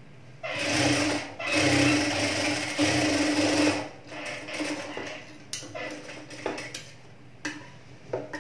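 Electric sewing machine stitching in three short runs in the first four seconds, each with a steady motor hum. Then a few scattered light clicks and knocks.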